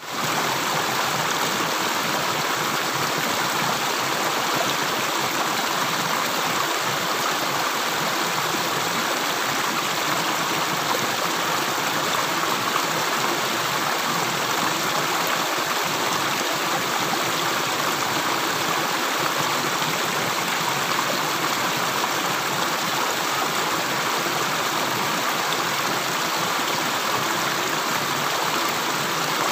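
Steady flowing water: an even, continuous rush without separate drips.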